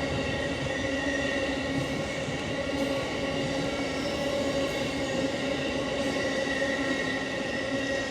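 A steady mechanical drone with several held tones over a low rumble, keeping an even level throughout.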